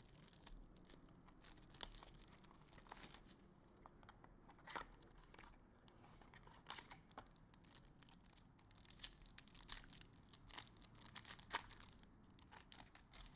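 Faint crinkling and tearing of packaging as a sealed mini box of trading cards is opened, with scattered sharp crackles that come more thickly in the second half.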